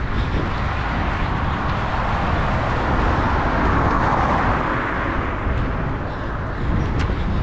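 A car passing by, its tyre and road noise swelling to a peak mid-way and fading again, over a steady low rumble.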